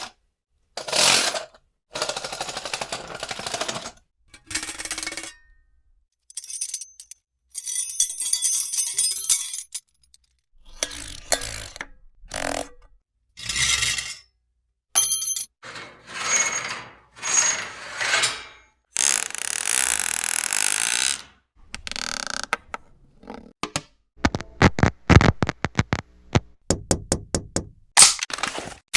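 A string of short mechanical noises, each a second or two long with silent gaps between: clattering and rattling, some with a whirring tone, ending in a fast run of sharp clicks and knocks.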